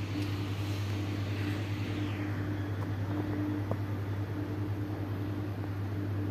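Steady low machine hum under an even hiss, with a higher hiss that fades out about two seconds in.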